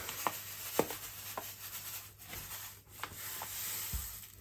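Granulated sugar being spread by hand over a wooden board: a gritty rubbing with a few light ticks.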